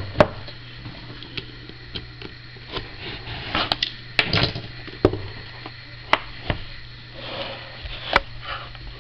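Trading cards and their packaging being handled: irregular sharp clicks and brief rustles over a steady low hum.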